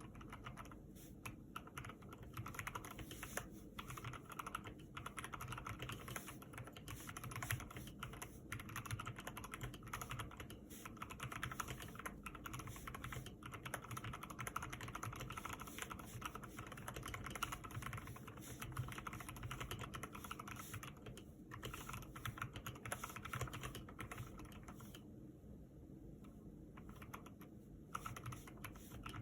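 Typing on a lubed Ardor Guardian mechanical keyboard: a fast, continuous run of keystrokes, with a brief lull about 25 seconds in.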